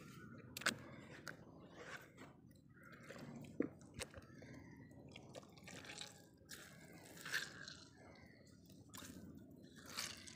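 Wet hands squeezing and wringing a slimy paste of ground vine leaves in a plastic bowl: faint, irregular squelches, small clicks and drips.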